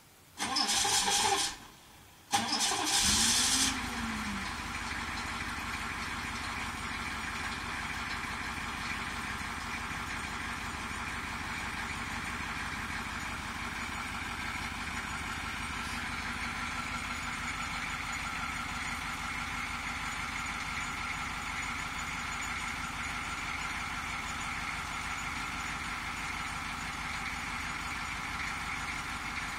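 1990 Chevrolet C2500's 6.2-litre V8 diesel cold-starting at around 40 °F: the starter cranks in two short loud bursts, and the engine catches about three seconds in, its speed rising and falling briefly before it settles into a steady idle.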